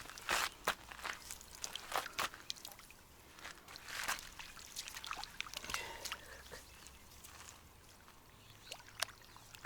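Water splashing and trickling in a series of short, sharp splashes and drips, busiest in the first few seconds and thinning out toward the end.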